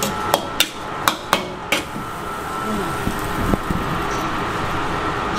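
Metal spatula striking and scraping a steel wok while noodles are stir-fried: about six sharp clanks in the first two seconds, then only a steady hiss.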